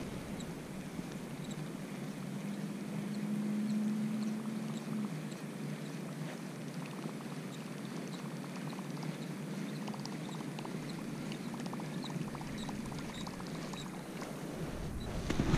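Faint ticking of a baitcasting reel being cranked to retrieve a Whopper Plopper topwater lure across the water, over a steady background hiss. A low hum lasts a few seconds near the start.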